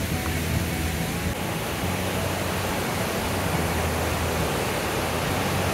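Steady rushing of the Brule River running high through its lower falls, an even wash of water noise with no breaks.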